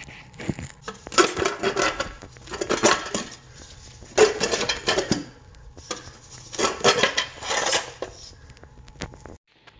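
Metallic clinking and rattling from small metal parts or tools being handled, in four bursts of about a second each.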